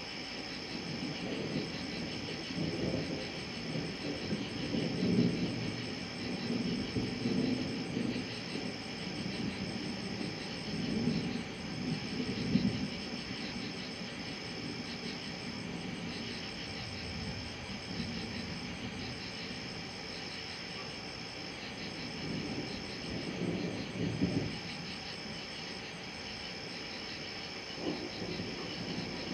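Thunder rumbling low in several long rolls, strongest from about two to thirteen seconds in and again around twenty-four seconds. Under it, insects keep up a steady high-pitched calling that breaks off briefly every second or two.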